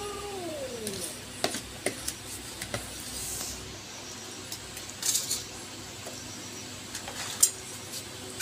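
A cat's meow sliding down in pitch and dying away in the first second, then scattered sharp clicks and clinks of steel plates as cats eat rice from them, with a small cluster about five seconds in and one louder click near the end.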